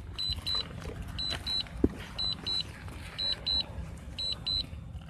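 Drone remote controller beeping in quick pairs of high tones, about one pair a second: the alert that the drone is flying its automatic return-to-home. A single sharp click sounds a little under two seconds in, over a steady low background noise.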